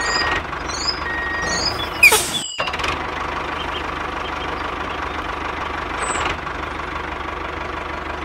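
Tractor engine running steadily, with a few short high chirps over it. About two seconds in, a sudden sweeping whoosh is followed by a brief cut to silence.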